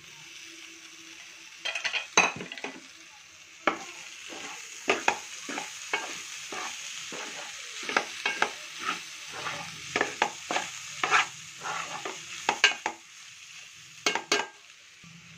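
Metal spoon scraping and knocking against a metal pot as minced mutton (keema) is stirred into fried onions, irregularly, over a steady sizzle of frying in oil.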